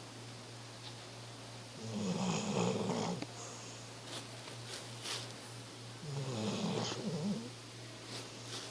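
Slow, steady snoring of someone sound asleep: two long, rough snores about four seconds apart, over a steady low hum.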